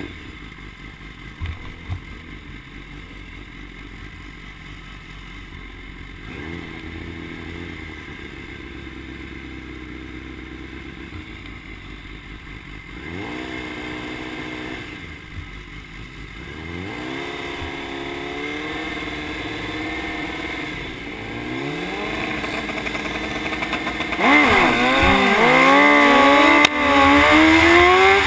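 BMW S1000RR's inline-four engine idling, then held at raised revs in stretches. Near the end it launches hard and gets much louder, the pitch climbing steeply, dropping twice at upshifts and climbing again.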